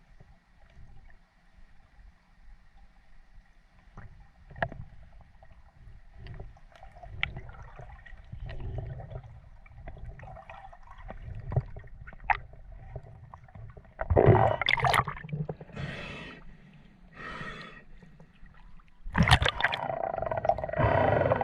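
Water gurgling and sloshing around a spearfishing diver in the sea, with scattered faint clicks, then several loud rushing bursts of water or bubbles in the second half, the longest near the end.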